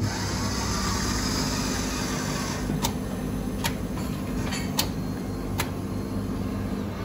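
Automatic coffee vending machine making a drink: a steady machine hum with a hiss over the first couple of seconds, then four sharp clicks.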